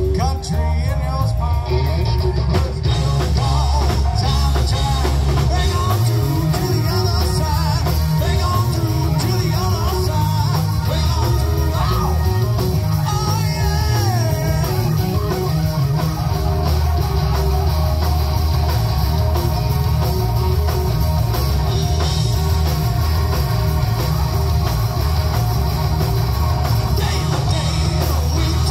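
Live rock band playing: electric guitars, electric bass and drum kit, with singing.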